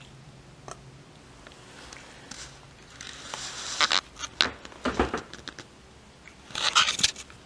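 Scattered scrapes, clicks and rustles of a cat's fur and clothing rubbing close to the microphone as the cat pushes up against the person filming. The loudest bursts come about three seconds in and again near the end.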